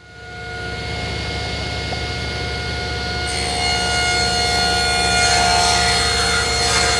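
Table saw running with a steady hum and whine. About three seconds in, the blade starts ripping a walnut board lengthwise, adding a higher, rougher cutting noise.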